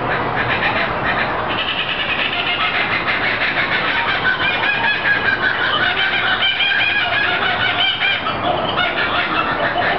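Laughing kookaburra giving its laughing call: a fast run of repeated cackling notes that builds to its loudest around the middle and drops lower near the end.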